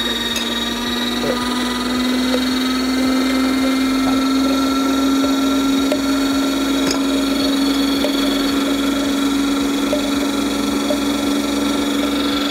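Мастерица electric meat grinder running with its auger juicer attachment fitted while apples are pushed down the feed tube. It gives a loud, steady motor hum whose pitch creeps slightly upward, with a few faint ticks.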